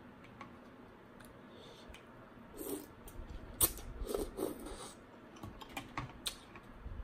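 Eating rice-noodle curry soup with a metal fork and spoon: a couple of slurps and mouth sounds around three and four seconds in, with sharp clicks of the utensils against a glass bowl.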